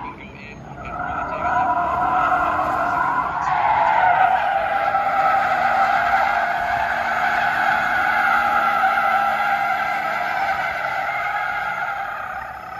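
Car tyres squealing as a station wagon slides sideways in a drift. The squeal drops out briefly just after the start, comes back about a second in, swells louder a few seconds later, holds steady and eases off near the end.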